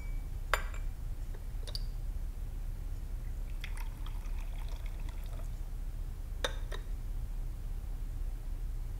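Tea poured from a porcelain teapot into a porcelain cup, trickling for about two seconds in the middle. Sharp china clinks come before and after the pour, as the cup and pot are handled.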